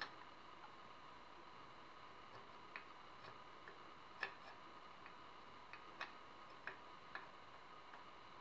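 Faint, scattered metal clicks and taps as an aluminum Picatinny top rail is worked onto the mounting lugs of a Tavor barrel assembly, about seven over several seconds, the sharpest about four seconds in.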